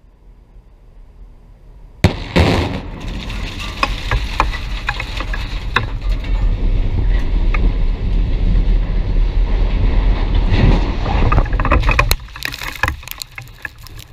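Explosive charges go off with a sudden sharp blast about two seconds in, followed by a long, loud rumble with scattered cracks as the 250-foot reinforced concrete windscreen topples and crashes down. The rumble drops off abruptly about two seconds before the end, leaving a few last cracks.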